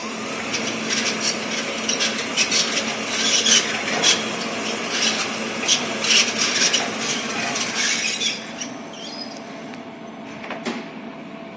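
A LEO lift drive unit running with a harsh scraping, rasping rub full of crackling spikes. The rubbing eases off after about eight seconds, leaving a quieter hum, and a single sharp click comes near the end. This is the strange noise from the drive unit.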